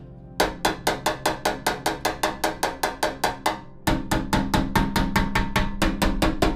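Rapid light hammer taps on a steel scooter body panel, at about six a second, with a short metallic ring on each: hammering against a dolly to push out a dent. The taps grow heavier about four seconds in.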